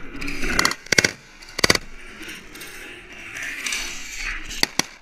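Shotgun blasts from hunters in a blind: three loud shots in quick succession within the first two seconds, then two short sharp cracks near the end.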